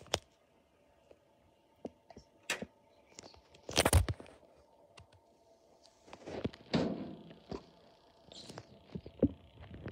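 Irregular knocks, taps and short rustles at a hamster tank, the loudest a cluster of knocks about four seconds in.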